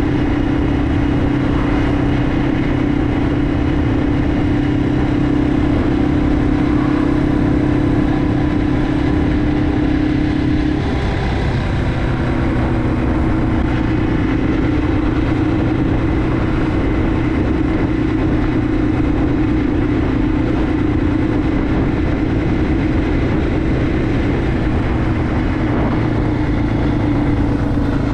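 Yamaha TW200's air-cooled single-cylinder four-stroke engine running steadily while the bike is ridden on the road. The engine note drops a little about eleven seconds in and climbs back near the end.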